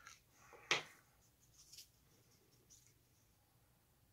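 Small handling noises at a painting bench: one sharp tap about a second in, then a few faint light ticks.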